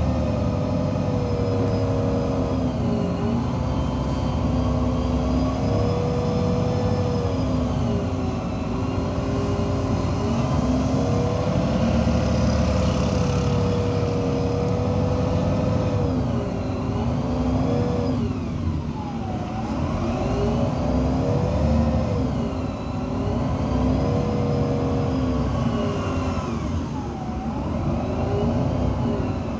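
Iveco Cursor 8 diesel engine of an Irisbus Citelis 18 articulated bus under way, its pitch rising and falling over and over with several sharp dips, as the bus speeds up and slows and its Voith automatic gearbox changes gear. A fainter high whine rises and falls along with the engine.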